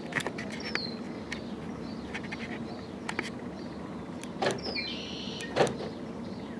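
Scattered light clicks and two knocks, with a brief small electric-motor whine about five seconds in. A bird gives a few short falling chirps.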